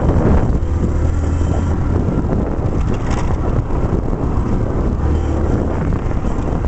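Small 100 cc Mondial motorcycle engine running steadily, carrying the bike along a dirt trail, with wind blowing over the microphone.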